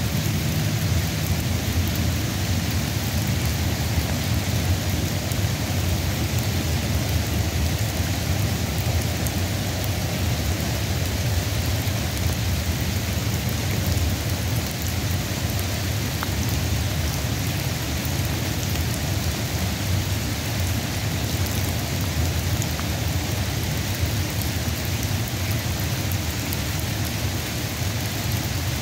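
Steady rain, an even hiss with a low rumble beneath it and no single drops or thunderclaps standing out.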